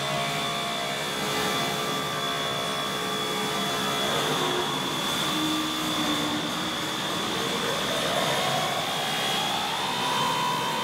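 Dense, steady rushing noise drone from a live-electronics and percussion improvisation, with a high held tone above it. A lower tone glides down about four seconds in and slowly climbs back up near the end.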